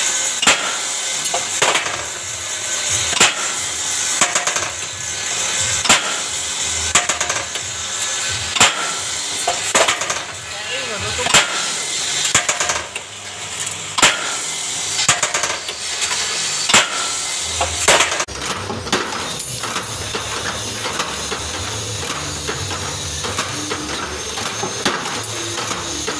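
Automatic rebar stirrup-bending machine, driven by a single-phase 1.5 hp electric motor, running and bending steel rod, with a sharp metallic clack roughly every 1.3 seconds. About two-thirds of the way in, the clacks stop and a steadier mechanical whirr with light ticking takes over, from a second bending machine forming square stirrups.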